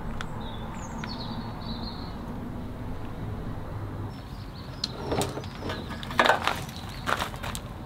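Footsteps on gravel and a pressure-washer hose being handled: a few separate crunches and knocks in the second half, the loudest about six seconds in. A short, high, falling chirp comes near the start.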